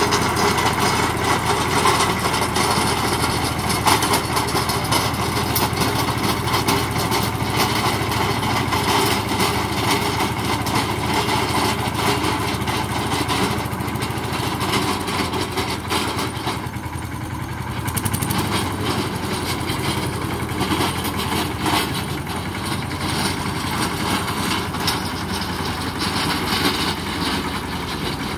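A 16 hp compact tractor's engine running under load as its 4-foot, 24-blade rotavator churns dry soil, with a dense crackle over a steady hum. It grows somewhat quieter in the second half as the tractor drives off.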